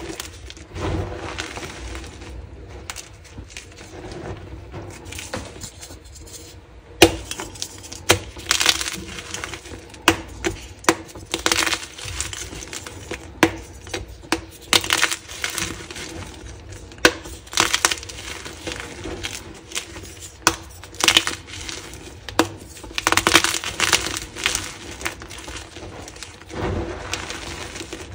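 Dyed gym chalk blocks and chunks crunching and crumbling as hands squeeze and break them in a pile of loose chalk. Sharp snaps of breaking chalk come over and over from about seven seconds in.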